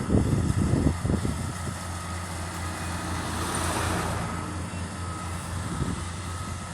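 A farm machine's engine running steadily in a rice field, with wind buffeting the microphone in the first second or so.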